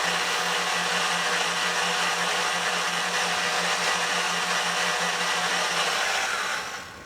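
Electric mixer running steadily, beating instant pudding mix and milk in a bowl; it winds down and stops near the end.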